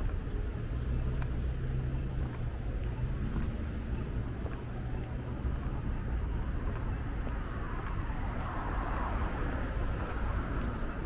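Street traffic: a low, steady rumble of vehicles. A motor vehicle's engine hum is heard for the first three seconds or so, rising slightly as it ends, and a louder rushing sound of a passing vehicle comes about eight to ten seconds in.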